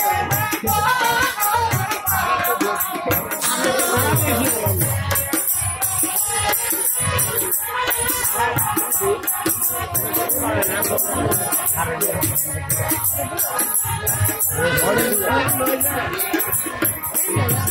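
Live folk music: a barrel drum beating under rattling, jingling percussion, with a wavering melody line above.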